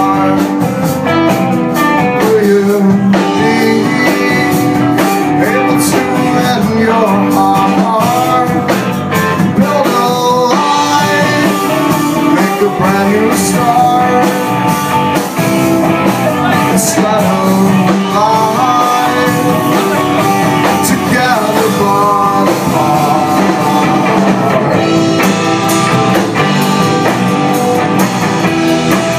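A four-piece rock band playing live, with electric guitars and bass guitar carrying a steady, loud rock song.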